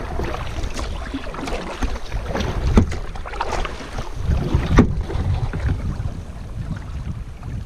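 Wind buffeting the microphone of a camera on a kayak, a steady low rumble, with water sloshing and a few sharp splashes from paddling.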